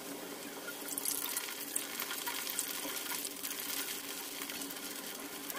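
Onion bhaji in gram-flour batter deep-frying in hot oil in a kadhai, with a steady sizzle and dense crackling that grows louder from about a second in.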